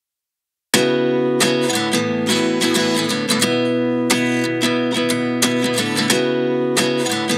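Under a second of silence, then background music led by a strummed guitar, with quick rhythmic strokes.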